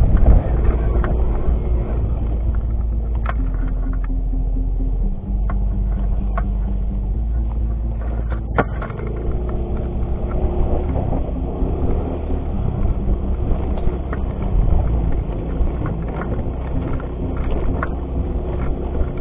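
Yamaha X-Ride 125 scooter's single-cylinder engine running as it rides a bumpy dirt trail, its note stepping up and down with the throttle. Scattered knocks and rattles from the bumps, one sharper knock near the middle.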